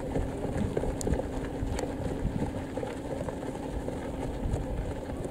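Steady low outdoor rumble with a faint hum and a few scattered faint clicks; no clear voices stand out.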